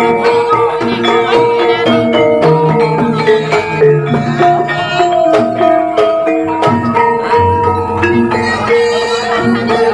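Javanese gamelan music for a kuda lumping dance: struck metallophones ring out a melody in a steady stream of notes, with percussion underneath.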